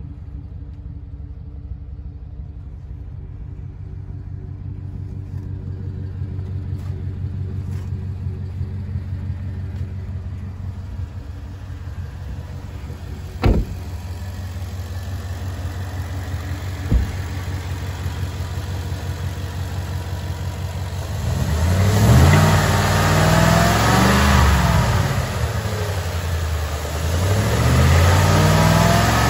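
Ford F-150 pickup engine idling steadily, with two sharp knocks partway through. Then it is revved twice, the pitch climbing and falling back each time.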